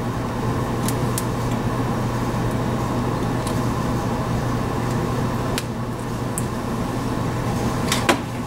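A 200-watt transformer soldering gun humming steadily while a joint between a new voltage regulator and its brush holder is soldered, with a few light clicks and one sharper click a little before the end.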